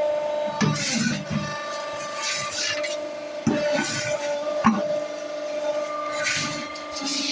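Hydraulic paving-block press running with a steady hum, overlaid by repeated gritty scraping and two sharp knocks in the middle.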